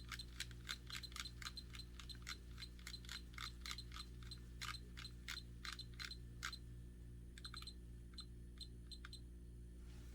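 Rapid series of short button clicks, each with a brief high pip, about three or four a second, from a DLAB dPette electronic pipette as its volume is stepped to the 5 µl setting. The clicks thin out about six and a half seconds in to a few scattered clusters, over a steady low hum.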